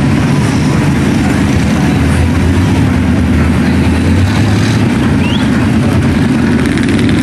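Engine of a huge lifted mud truck on giant tyres running steadily and loudly as it creeps forward, a low, continuous engine note.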